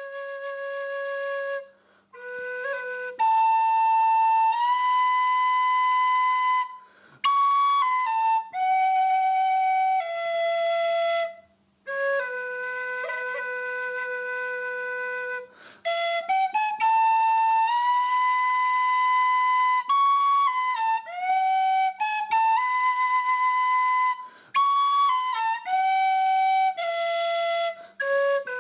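Background music: a single wind instrument playing a slow melody of long held notes, sliding up into some of them, in phrases with short breaks between.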